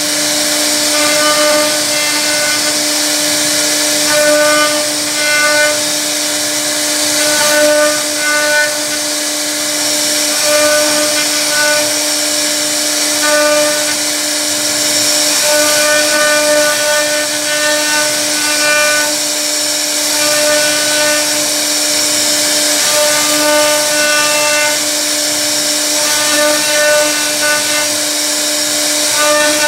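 CNC router spindle carving a relief pattern into a wooden panel: a steady whine with the hiss of the bit cutting wood. A higher-pitched whine cuts in and out every second or two as the machine works.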